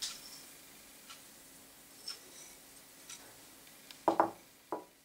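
Faint ticks while fresh thyme is sprinkled by hand over chicken thighs in a pan, over a faint steady hum; about four seconds in, a small ceramic bowl is set down on the wooden worktop with a knock, and a lighter knock follows.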